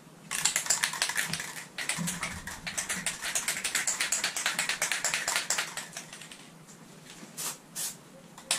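Aerosol spray can of Plasti Dip Glossifier being shaken, its mixing ball rattling rapidly for about six seconds. A few separate clicks follow near the end.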